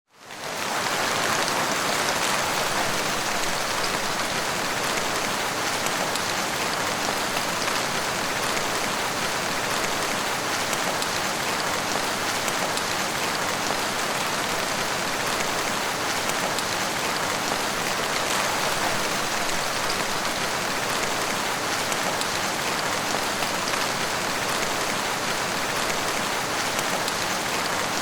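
Steady, heavy rain: a dense, even hiss of many drops falling, fading in at the very start and then holding level without change.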